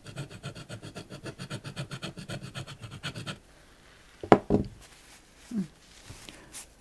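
Utility-knife blade scraping back and forth over oil pastel on paper to scratch colour away, about six quick strokes a second, stopping a little over three seconds in. Then two sharp knocks, the loudest sounds, and a short soft thud.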